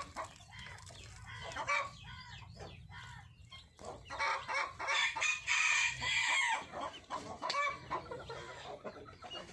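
Chickens clucking and calling, with a louder run of calls from about four to six and a half seconds in.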